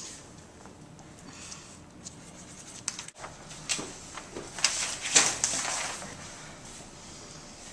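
Large paper aeronautical charts rustling and crackling as they are handled and spread on a table. The loudest part is a run of sharp crinkles from about four to six seconds in.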